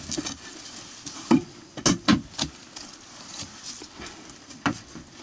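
A few short knocks and scuffs, about a second and a half in, twice around two seconds and again near the end, as someone moves about on attic boards and handles things in the dark.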